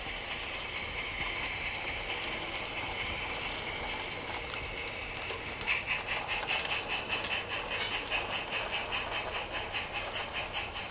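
A 16mm-scale model narrow-gauge steam locomotive running past with its train: a steady hiss, then from about six seconds in a regular chuffing of about four to five beats a second.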